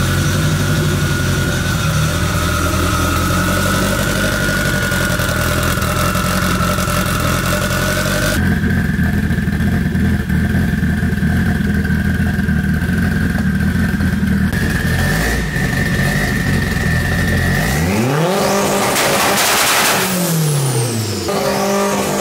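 Turbocharged Honda K20 four-cylinder in an Acura Integra, running loud and steady on one of its first starts after the build, with a steady high whine over it. Near the end the engine is revved once, rising and falling back.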